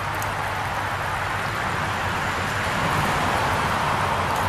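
Shallow brook running over rocky riffles, a steady rush of water that grows a little louder partway through, with a steady low drone of highway traffic beneath it.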